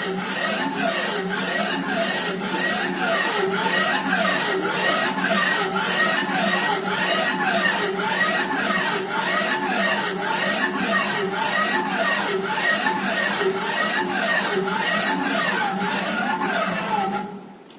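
Stepper motors of a small CNC machine whining in pitches that rise and fall as the axes speed up and slow down, over a steady hum, with a faint regular ticking. The motors stop near the end.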